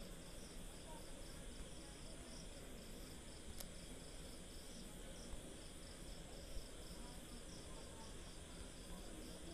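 Faint insect chirping, a steady high pulsing trill of several pulses a second, over low background hiss and hum, with one faint click about a third of the way in.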